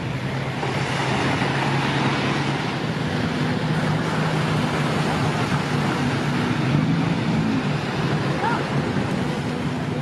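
Steady rush of surf and wind on the beach, with a low steady hum that is strongest in the first couple of seconds and faint voices in the background.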